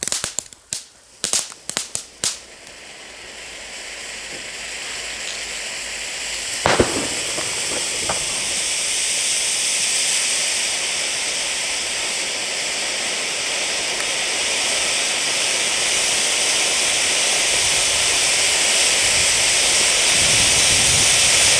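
Firework ground fountain (Geisha Melt Down) starting with a quick run of sharp crackles, then a spraying hiss that swells over several seconds into a steady loud rush. A single sharp pop cuts through about seven seconds in.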